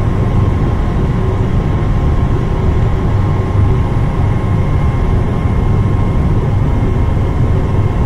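Steady low roar of industrial gas burners (North American Tempest) firing at high fire with their combustion air supply running. A faint, steady high whine sits over it.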